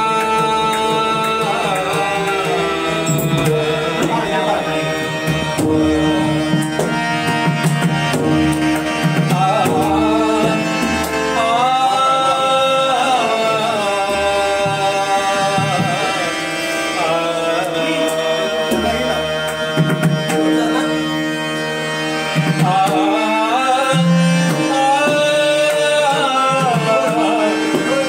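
Malvani bhajan music: a singer's voice sliding between held notes over steady sustained instrumental notes, with a running hand-drum rhythm.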